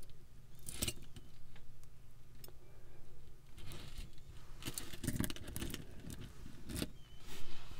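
Glass beads and metal costume jewelry clicking and rattling against each other as pieces are picked up and handled, in a handful of scattered clicks and rustles.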